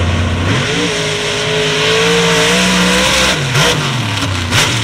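Ford F-250 Super Duty truck engine revving hard through mud. The pitch climbs about half a second in, holds high, then drops off about three seconds in. A few sharp knocks sound near the end.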